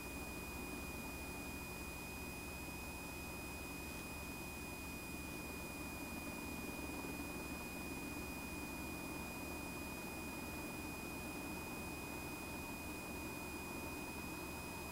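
Cabin noise inside an AH-64A Apache helicopter in flight: a steady high-pitched whine over a low, muffled rumble.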